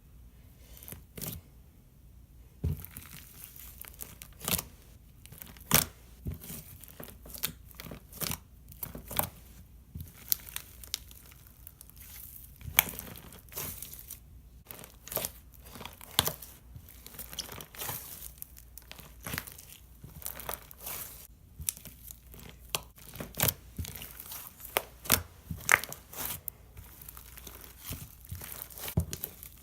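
Slime being squished and stretched by hand, giving an irregular run of sticky crackles, pops and tearing sounds, several a second.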